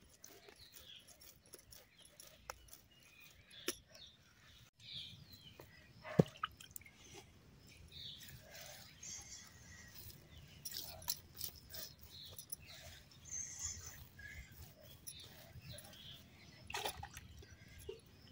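Faint soft pats and moist squishing of hands shaping cooked ragi (finger millet) dough into balls on a granite slab, with scattered light clicks. One sharp click about six seconds in is the loudest.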